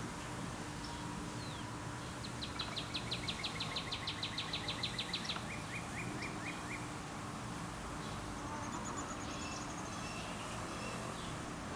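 A songbird singing outdoors: a rapid trill of short repeated chirps for about three seconds, then a few slower falling notes, and later a higher, thinner trill, over a steady background hum.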